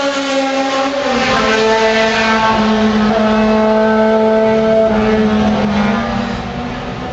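Race car engine running hard at high revs, its pitch stepping down about a second in and then holding steady before fading near the end.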